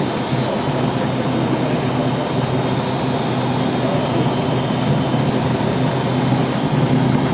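Cessna 172's piston engine and propeller running at a low, steady power setting, heard from inside the cockpit, as during taxi after landing.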